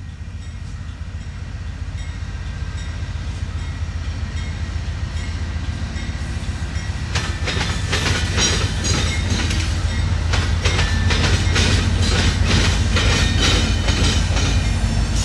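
Union Pacific diesel freight locomotives, a rebuilt GE C44ACM leading and an EMD SD70ACe trailing, approach with a deep engine rumble that grows steadily louder. From about seven seconds in, the wheels clatter over the diamond crossing in a rapid run of sharp clicks and bangs.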